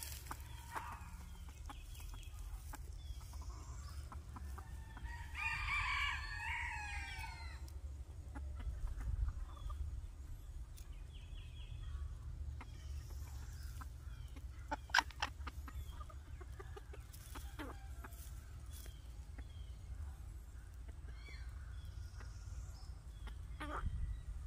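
A rooster crows once, about five seconds in, a call lasting roughly two and a half seconds. Soft short clucks and a few sharp clicks follow over a steady low rumble.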